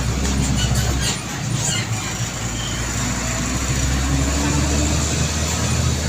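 A heavy road vehicle's engine rumbling as it passes along the road, with a few sharp rattling clicks in the first two seconds.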